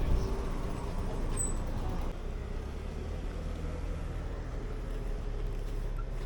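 Steady low rumble of road traffic, easing slightly about two seconds in.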